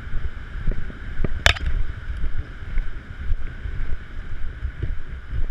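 Wind buffeting the camera microphone on a ship's open deck: a gusting low rumble with a steady faint hum underneath, and one sharp click about a second and a half in.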